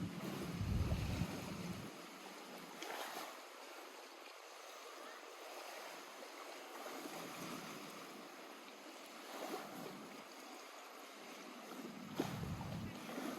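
Lake water lapping gently at the shore, swelling softly now and then. A low rumble of wind on the microphone during the first couple of seconds.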